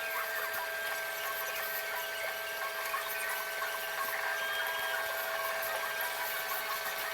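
Steady mechanical whine holding two tones, with many small clicks and rattles over it.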